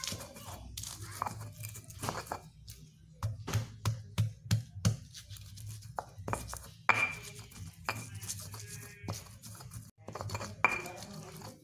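Stone pestle crushing and grinding shallots, garlic, coriander seeds and salt in a stone mortar: irregular knocks and crunches of stone on stone, with grinding scrapes as the spices turn to paste.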